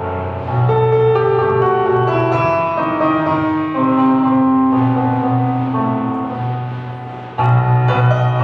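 Slow piano music for ballet barre work, with long held notes and a melody stepping downward; it fades briefly and a loud new chord strikes near the end.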